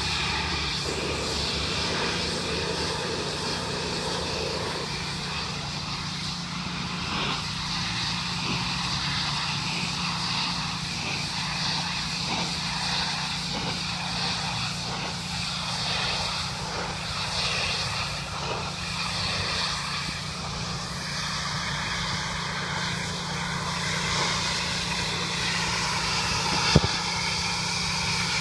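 Pressure washer's engine running steadily, with a sharp click near the end.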